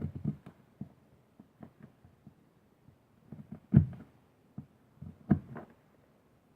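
Knife cutting and scraping at a notch in a Western red cedar hearth board: scattered small clicks and scrapes, with two sharper knocks, one near the middle and one about five seconds in.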